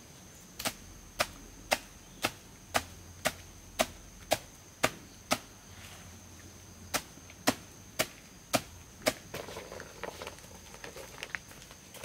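Rhythmic chopping, sharp strokes about two a second: ten in a row, a pause of about a second and a half, then five more, followed by softer, scattered knocks near the end.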